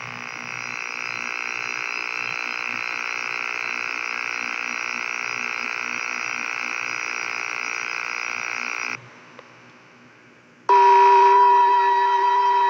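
A steady electrical buzz that cuts off abruptly about nine seconds in. After a brief quieter gap, the colour-bar test tone of a TV station's sign-off starts: a loud, steady pure tone.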